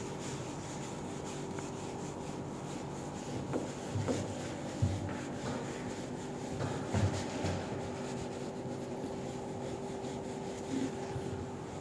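Whiteboard duster rubbing across a whiteboard in repeated wiping strokes as the board is erased, with a few soft knocks against the board.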